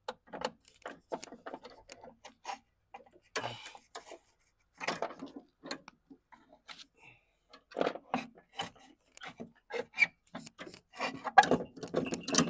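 Irregular light clicks and knocks of a Gen 3 Toyota Prius ABS actuator unit, metal and plastic, being wiggled loose by hand and lifted out of its bracket, coming thicker and louder near the end.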